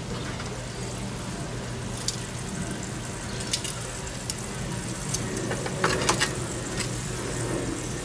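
Food sizzling on a hot charcoal grill, a steady hiss, with a few light clicks of metal tongs against the pan.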